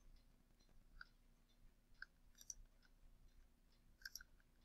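Near silence, broken by a few faint, short computer mouse clicks.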